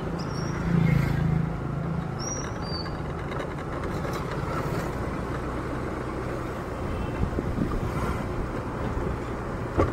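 Small motorcycle engine running steadily at riding speed, heard from the saddle with road and wind noise. The engine note rises briefly about a second in.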